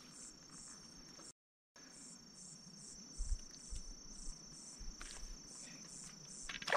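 Insects chirping in an even, high-pitched rhythm of about two to three pulses a second over a steady high buzz. The sound drops out completely for a moment about one and a half seconds in, and a few soft low thumps come in the second half.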